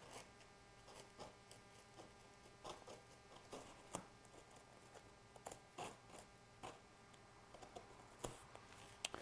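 Faint, scattered small clicks and scratches of a box cutter slicing through headliner fabric.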